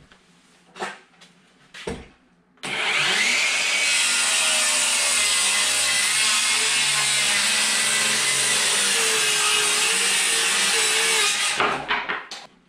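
Electric power saw cutting through wood, running steadily for about nine seconds with a whine that wavers under load, then stopping near the end. A few short knocks come before the cut.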